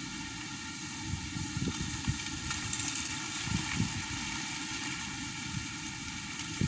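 Strong wind buffeting the microphone, making an uneven low rumble over a steady hiss.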